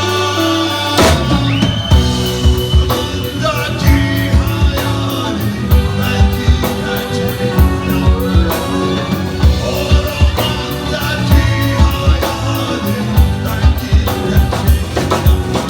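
Rock song with singing over a drum kit, the cymbal ticking out a steady beat.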